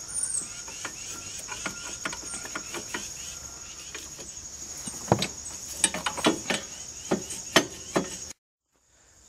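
Metal clinks and knocks of a quad's exhaust pipe being worked into place at the cylinder head. They grow louder and more frequent about five seconds in, over a steady high-pitched insect chorus, and the sound cuts off abruptly near the end.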